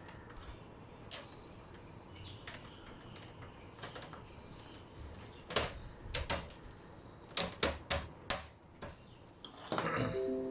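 Plastic latches of an LCD monitor's casing clicking and snapping as the case is pried apart with a screwdriver. A few sharp clicks come scattered at first, then several close together in the second half, with a longer, louder scraping stretch near the end.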